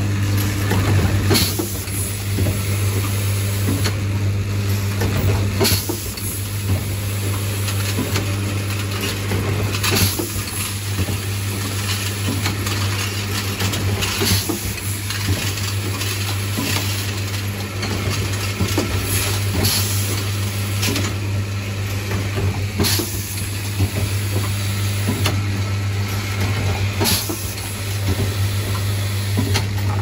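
A fully automatic plastic corner-connector screw assembly machine running in production. A vibratory feed track gives a steady hum under a hiss, and sharp clacks of the pneumatic actuators and parts come every couple of seconds.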